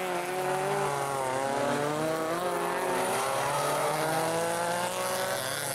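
Engines of several rear-wheel-drive folkrace cars revving as they slide through a corner. The overlapping engine notes rise and fall in pitch without stopping.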